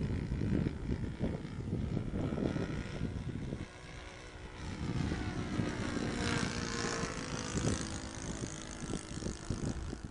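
Model airplane's motor and propeller passing overhead, its pitch rising and then falling over a few seconds in the middle, over a low gusty rumble of wind on the microphone.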